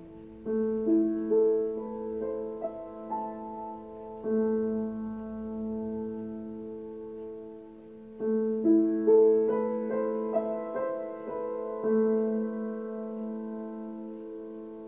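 Solo piano improvising slowly: short rising figures of single notes and sustained chords left to ring.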